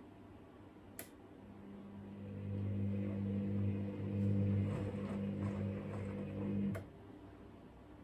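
Hoover DynamicNext washing machine on a wool cycle: a relay clicks, then the drum motor hums up and turns the drum gently for about five seconds, with water and the load sloshing, before it stops abruptly with a second click.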